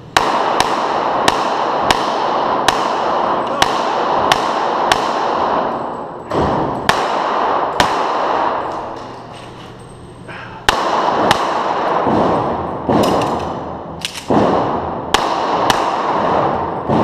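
Rapid strings of shots from a competition pistol, an STI 2011, about two dozen in all, echoing hard off the concrete walls of an indoor range. There is a pause of a couple of seconds in the middle before the shooting resumes.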